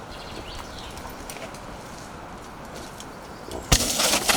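Faint outdoor quiet, then near the end a sudden loud thud and a rush of noise as a Santa Cruz Bronson mountain bike lands a step-down drop and rolls on over the dirt.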